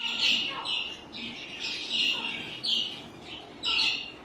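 Small cage birds chirping: a quick run of short, high chirps, several a second, overlapping in a busy chatter.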